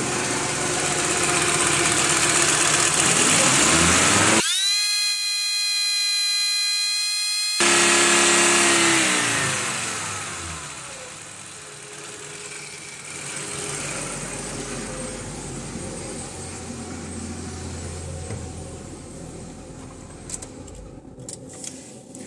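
VW T4's 2.5-litre five-cylinder ACU petrol engine revved up, held at high revs for a few seconds, then dropping back to a lower, quieter idle. The engine is warm and prone to stumbling and stalling at operating temperature.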